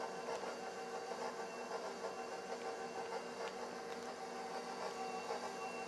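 KitchenAid stand mixer running steadily, its motor giving a constant hum as it beats powdered-sugar frosting in the steel bowl.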